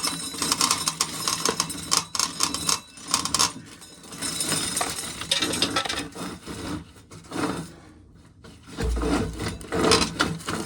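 Dry corn being shelled: kernels scraping and rattling off the cobs in irregular bursts of rubbing and clicks, with a dull low bump about nine seconds in.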